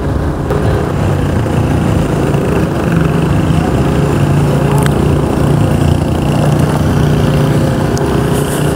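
Yamaha NMAX scooter's single-cylinder engine running steadily while riding at an even speed, with road and wind noise.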